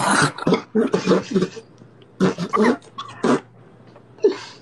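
A woman laughing in short, choppy bursts with brief gaps between them.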